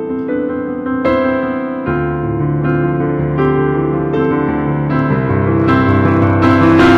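Instrumental music: slow, sustained chords played on a keyboard, changing about once a second, with no singing. A hissing wash swells in near the end.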